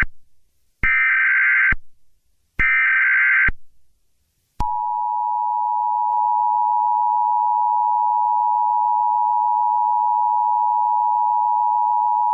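Emergency Alert System SAME header: two short, identical blasts of buzzy digital data tones, the last of a set of three, which encode the alert. About four and a half seconds in, the steady two-tone EAS attention signal begins and holds, the alarm that announces an emergency alert is about to be read.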